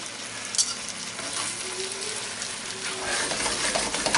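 Hake slices and prawns sizzling in a frying pan while a fork moves them, with a sharp clink about half a second in. Near the end the pan is shaken on the gas burner's grate, and the sizzling grows louder with a low scraping rumble.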